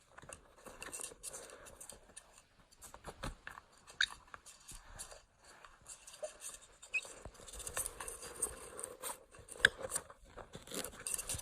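A parrot scrabbling through a tight tube: irregular scratching, scraping and clicking as it grips and pushes along, with a few short, high chirps.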